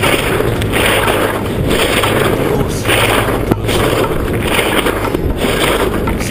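Skis scraping over hard, wind-crusted snow at speed, the scrape swelling about once a second with each turn, over wind rumbling on the microphone.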